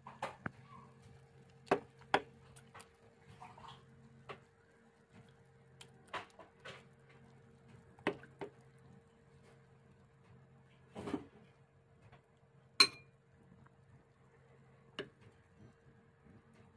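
Scattered light clinks and knocks of kitchen dishes and utensils, a few seconds apart, the loudest a sharp ringing clink about three-quarters of the way through, over a faint steady hum.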